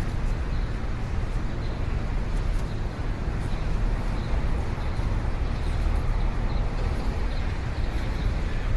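City street traffic: a steady low rumble of passing cars and buses, with faint short high chirps here and there.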